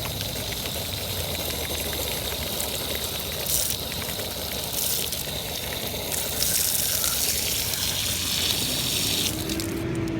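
Misbehaving drinking fountain spraying water in a steady gush, with brief louder surges and a stronger spray from about six seconds in until just before the end. The fountain is shooting water far harder than normal.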